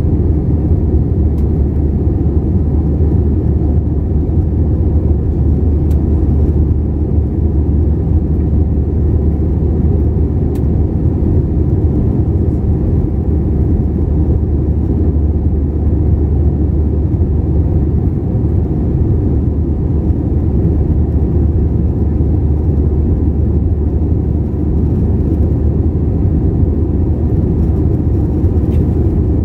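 Steady low roar of an Airbus A321 in flight, engine and airflow noise heard inside the cabin from a window seat.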